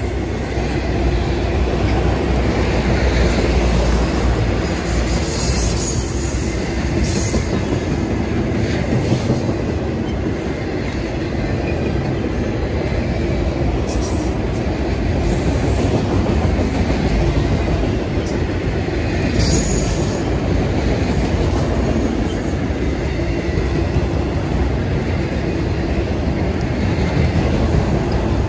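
Freight train cars rolling past, a loud steady rumble of wheels on rail with clickety-clack, and a few brief high-pitched wheel sounds about 6, 14 and 19 seconds in.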